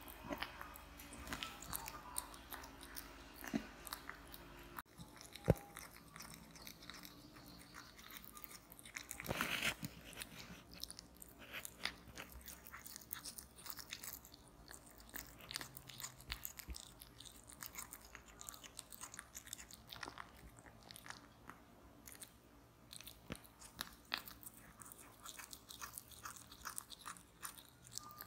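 Tabby cat chewing and biting turkey slices: a quick, irregular run of small chewing clicks, with one sharper click about five seconds in and a louder patch of chewing around nine to ten seconds in.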